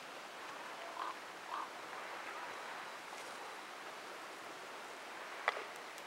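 Faint outdoor ambience: a steady, even hiss. Two short faint calls come about a second in, and a single sharp brief chirp or click comes near the end.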